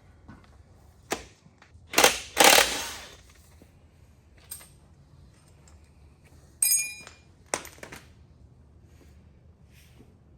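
Sharp metal knocks as a piston and connecting rod are tapped out of a cylinder of an LS1 V8 block: a couple of loud knocks about two seconds in, then a ringing metallic clink about six and a half seconds in and smaller clicks. The rings still grip the bore tightly, which the men take as a sign of really good compression.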